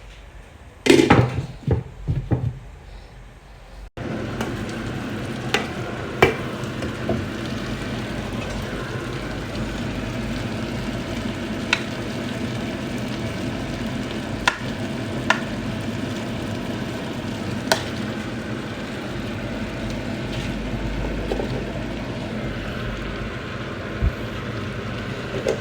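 A few metal clatters in the first couple of seconds, typical of a lid going onto the pot. From about four seconds in, a steady sizzling and bubbling from the covered pot of khichuri as its water cooks off, with scattered sharp pops.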